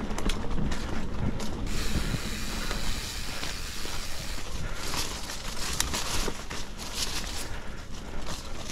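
Mountain bike riding a rough dirt singletrack: steady tyre and ride rumble, with the rear freehub ratcheting while coasting. From about four and a half seconds in, a run of rustling swishes as leaves and undergrowth brush past the bike and rider.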